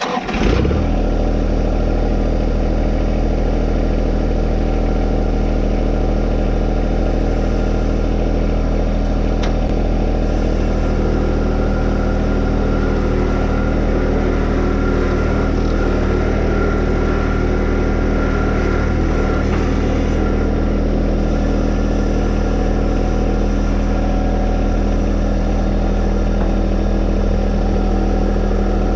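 Tractor engine running steadily under load while pulling a box blade, its claws set low, to till bare dirt.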